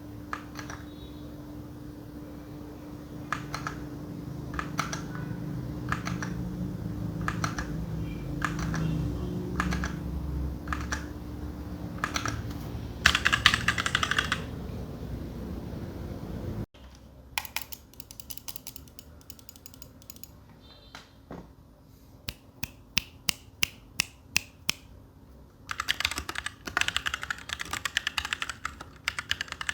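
RK61 60% mechanical keyboard with brown switches being typed on: single keystrokes about one or two a second, a short fast burst of typing, then after a cut a run of evenly spaced key presses and fast continuous typing near the end.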